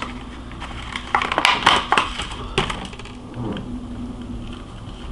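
Hard plastic clicking and clattering as a small turtle shipping container is handled and opened, with a quick burst of sharp clicks about a second in and a last couple of clicks a little later.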